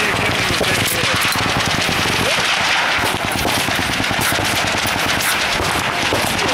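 Continuous automatic gunfire from several machine guns firing at once along a firing line, shots overlapping with no pause.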